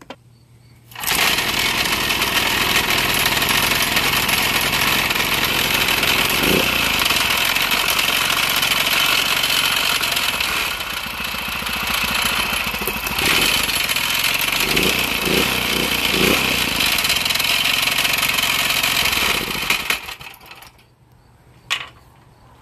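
GX200-clone single-cylinder four-stroke small engine starting about a second in and running steadily for about nineteen seconds before it is shut off. It is running on its original steel flywheel, which shows the engine itself is fine and the failure lay with the 3D-printed flywheel.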